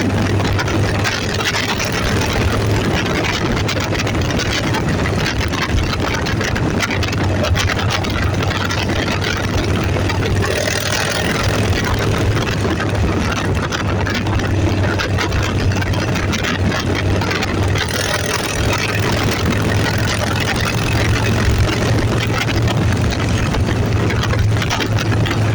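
A motor vehicle engine running steadily with a constant low drone, under loud rushing noise.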